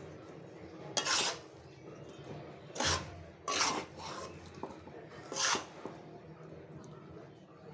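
Spatula scraping and stirring rice in a karai (wok), four short scrapes at uneven intervals.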